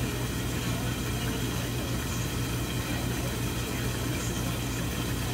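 A machine running steadily: a constant low hum with an even hiss over it, unchanging throughout.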